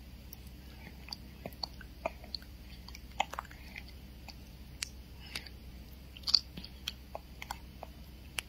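A baby's lips and mouth sucking and smacking at a small green piece held to them: irregular soft wet clicks and smacks, with the sharpest about six and a half seconds in.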